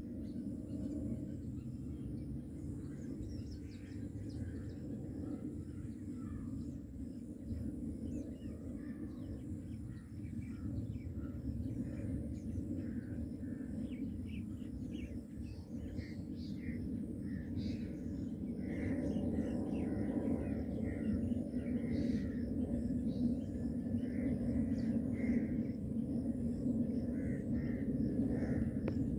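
Distant jet airliner flying high overhead: a steady low rumble that grows louder in the second half, with small birds chirping throughout.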